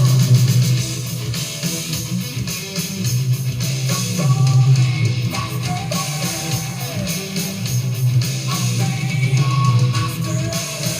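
Heavy metal music with electric guitar over bass, the lead guitar's notes bending up and down in pitch.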